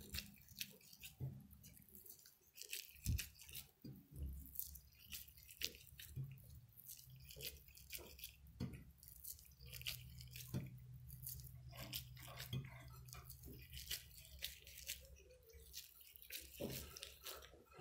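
Faint, scattered soft clicks and crackles of gloved hands pinching marble-sized bits off a strip of bulgur dough and setting them in a glass dish, over a low steady hum.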